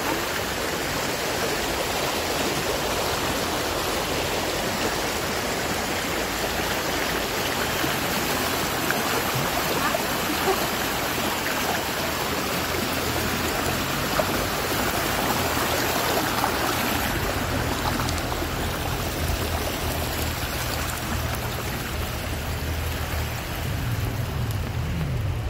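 A small river flowing with a steady rushing sound. About two-thirds of the way through, a low rumble joins it.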